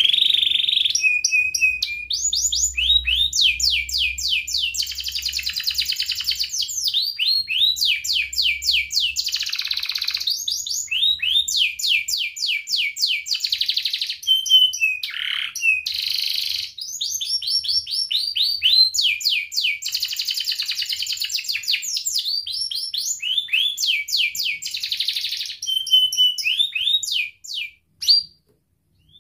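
Domestic canary singing a long, near-continuous song of rolling trills and fast repeated sweeping notes, breaking off near the end into a few short chirps.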